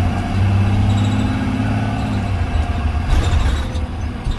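Blue Bird Vision school bus engine running, heard from inside the bus: its low drone holds steady, then drops off about two seconds in. A brief hiss follows about three seconds in.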